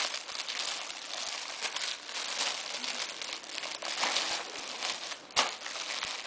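Shiny metallic gift wrap crinkling and rustling as a child pulls at it to unwrap a present, with a sharp louder crackle about five and a half seconds in.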